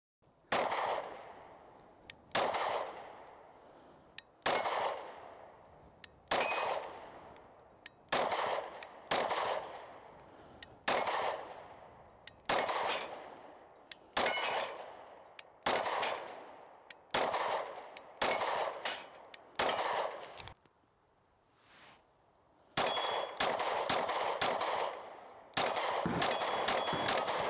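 Springfield Hellcat pistol fired in about a dozen slow, aimed shots, one every one and a half to two seconds, each with a short echo. After a brief pause comes a faster string of shots near the end. A light metallic ring on some hits sounds like a steel target.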